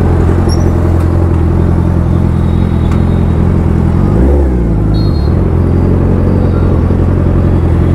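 Suzuki Hayabusa's inline-four engine running steadily while riding. About four seconds in, its pitch briefly rises, then falls back.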